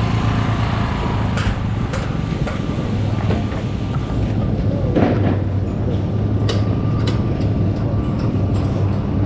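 Construction-site noise: a steady low machine drone, with scattered sharp knocks and clanks from work on the formwork.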